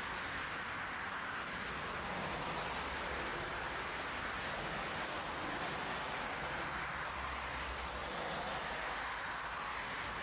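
Steady rushing roar of an airliner's jet engines during a landing, even in level throughout.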